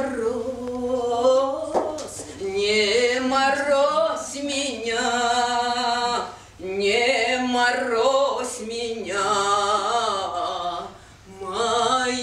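Unaccompanied singing voice, long drawn-out notes that slide up and down in pitch, with short breaks about six and eleven seconds in.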